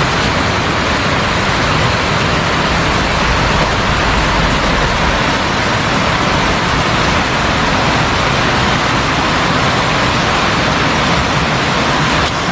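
River water rushing steadily over a low concrete weir and rocks, a loud, even hiss with no breaks.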